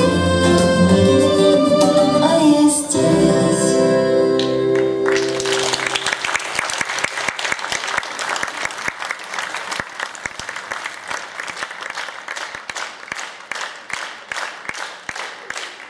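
Acoustic folk-rock band of accordion, violin and guitars ending a song on a held final chord, followed about five seconds in by audience applause that fades and thins into scattered claps.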